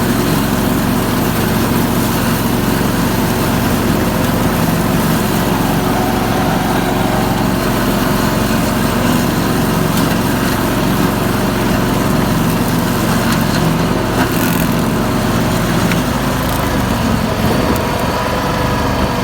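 Ride-on lawn mower's engine running steadily, its pitch shifting slightly near the end.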